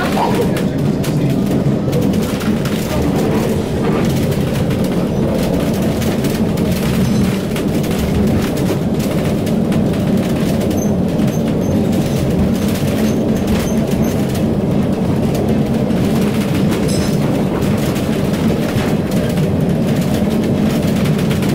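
Lisbon tram running along its rails, heard from inside the car as a steady, loud low rumble with no let-up.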